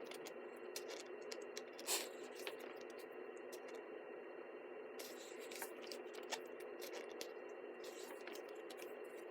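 Pages of a thick photo book being turned and handled: scattered soft paper taps and scrapes, one a little louder about two seconds in, over a steady low room hum.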